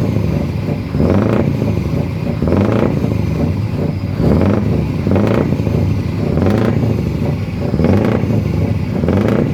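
Truck engine running with a steady low note that surges in level about once a second.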